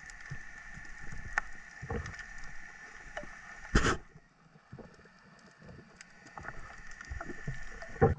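Underwater camera audio: a muffled water hiss with scattered faint clicks, and one louder whoosh about four seconds in, after which it goes quieter for a moment.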